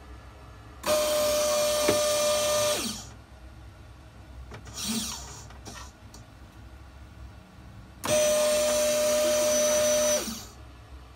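Graupner sail-winch servo motor running twice, about two seconds each time, with a steady electric whine that drops in pitch as the winch stops.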